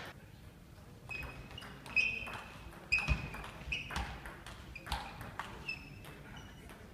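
Table tennis rally: the ball clicks sharply off the bats and the table about ten times at an uneven pace, each hit ringing briefly and echoing in a large sports hall.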